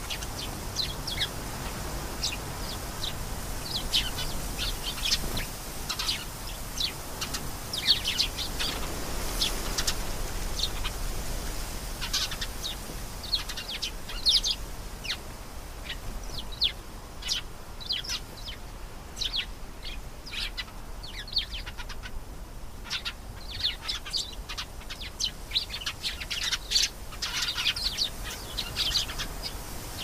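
Domestic canary singing: long runs of quick, high chirps and trills, broken by short pauses between phrases.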